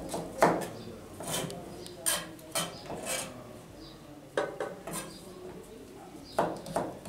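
Chef's knife chopping carrot on a plastic cutting board, dicing it into medium cubes: a series of uneven knocks, bunched in quick groups with short pauses between.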